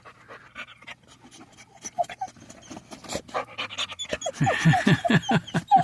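Boxer dog panting hard from the heat, faint at first, then loud and fast at about five breaths a second from about four seconds in.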